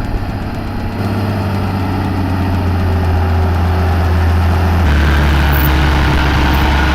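A heavy diesel engine running steadily with a deep drone. It gets louder about a second in and changes note about five seconds in.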